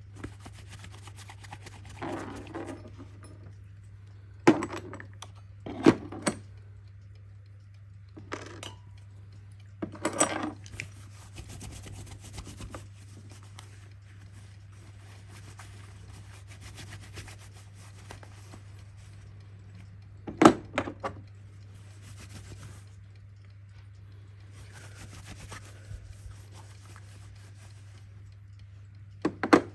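Hands handling and working on a mechanical alarm clock: a few sharp clicks and knocks, the loudest about a third of the way in and again near the end, with small metallic rattling and rubbing between them, over a steady low electrical hum.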